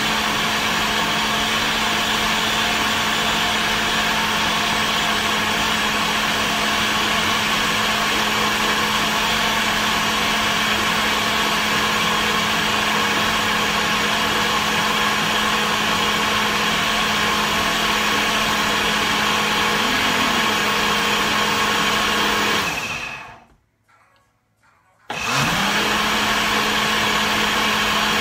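Nutri Ninja blender running steadily at one constant motor pitch, blending a smoothie. Near the end it stops for about two seconds, then starts again, its pitch rising as the motor spins back up.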